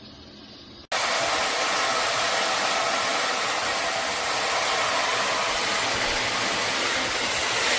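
MakeFit filtered shower head spraying water: a steady, loud hiss of running spray that starts abruptly about a second in.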